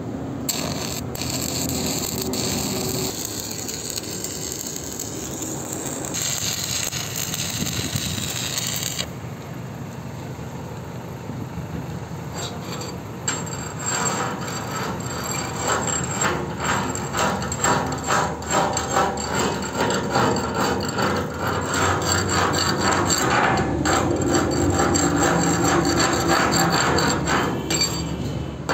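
Stick (shielded metal arc) welding along the seam of steel tank plates: a continuous hissing, crackling arc that turns louder and more densely crackling about halfway through.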